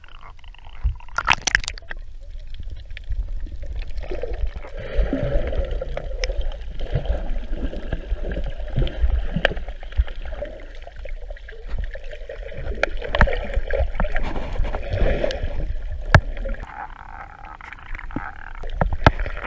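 Water sloshing and gurgling around a swimmer's handheld camera as she goes under and dives, muffled and rumbling underwater, with a splash about a second in and scattered sharp clicks.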